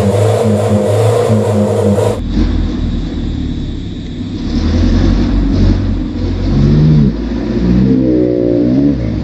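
Ragasa 4x4 truck's diesel engine revving on a slippery mud track. The sound changes abruptly about two seconds in, and near the end the engine note climbs and falls in pitch several times.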